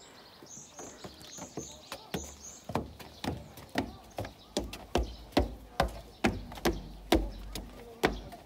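Footsteps on wooden boardwalk planks, about two to three a second, growing louder and heavier toward the end.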